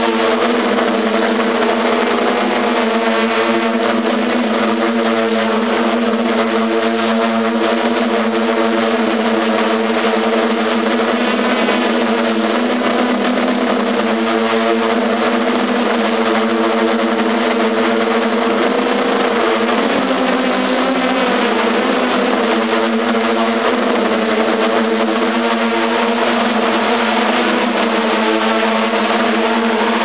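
A hexcopter's six motors and propellers running, heard from the on-board camera as a loud, steady multi-tone buzz. The pitch wavers briefly about twenty seconds in.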